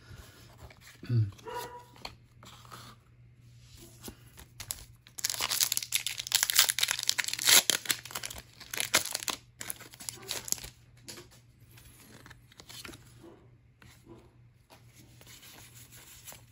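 A foil Pokémon card booster pack wrapper is torn open and crinkled, loudest from about five to nine and a half seconds in. After that come quieter rustles as the cards are handled.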